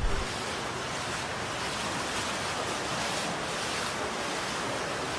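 Steady rushing of water: an even, unbroken hiss.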